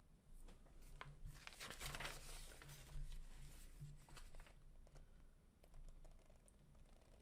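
Faint handling noise of wiring being worked by hand: scattered small clicks, with a brief crinkling rustle about a second and a half in.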